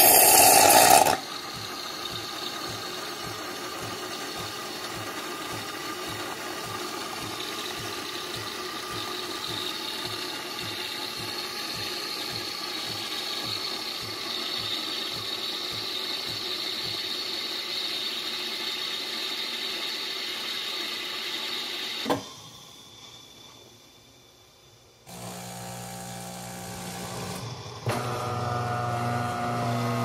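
De'Longhi Magnifica Evo automatic espresso machine frothing and dispensing milk through its milk spout. A loud burst of hiss in the first second gives way to a steady pulsing mechanical hum with hiss, which stops with a click about 22 seconds in. A few seconds later a low motor hum starts, growing louder near the end.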